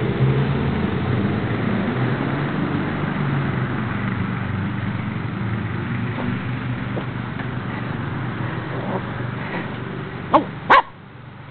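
A dog barks twice, short and sharp, in quick succession near the end, over a steady low hum.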